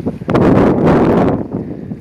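Strong storm wind buffeting the microphone in gusts, with the heaviest gust starting about a third of a second in and easing off about a second later.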